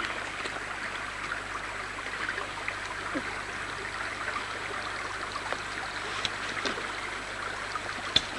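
Small creek babbling steadily, with scattered faint ticks and one sharper click near the end.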